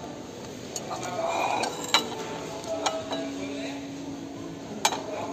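Crockery and glassware clinking now and then: several sharp clinks, some with a short ring, the loudest about two seconds in. Behind them is a low murmur of voices.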